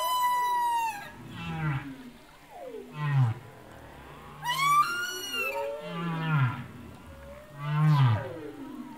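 Soundtrack of whale-like gliding calls: a series of drawn-out cries, mostly falling in pitch, coming every second or two, with deep falling tones beneath them.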